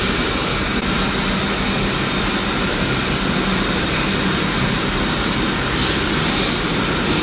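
A steady rushing noise with a low hum, unchanging throughout.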